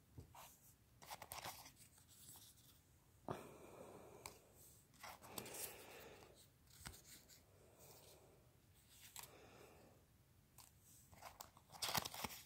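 Faint, irregular rustling and crinkling of stickers and their paper card being handled, loudest in a short flurry near the end.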